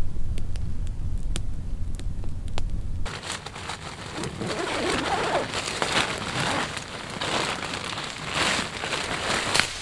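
Campfire crackling with sharp, separate pops over a low rumble. About three seconds in this gives way to steady rustling and crinkling of sleeping-bag and bivy fabric as a camper shifts inside a bedroll under a tarp.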